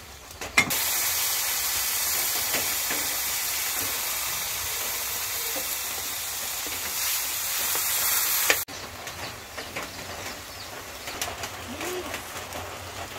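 Ground meat frying in hot oil in a wide metal pan: a loud, steady sizzle that starts suddenly just under a second in and cuts off abruptly about two-thirds of the way through. After that comes a much quieter stretch with scattered clicks of a metal ladle stirring.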